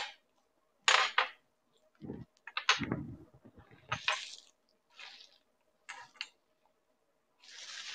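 Small ceramic bowls being set down and shifted on a glass tabletop: a series of short knocks and clinks, with plastic wrapping rustling in between and briefly near the end.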